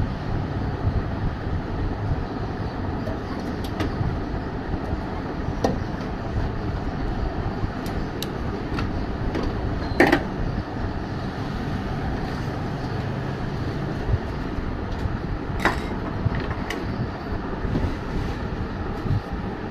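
Steady background rumble, with a few sharp clicks and knocks as the metal parts of a microwave oven are handled and refitted during reassembly. The loudest knock comes about halfway through.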